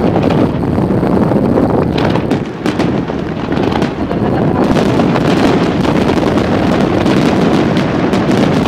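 Aerial firework shells bursting in rapid succession: a continuous rumble of overlapping booms with crackling, growing denser with more crackle about halfway through.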